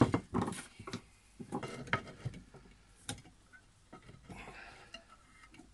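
Thin bonsai wire being handled and twisted with pliers against a shallow plastic pot: a few sharp clicks and light knocks with a short rustle about four seconds in.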